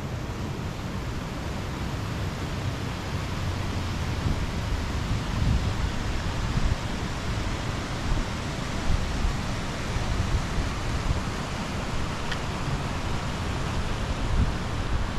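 Wind buffeting the microphone on a moving motorcycle: a steady rush with a low rumble that grows louder a few seconds in and swells in gusts.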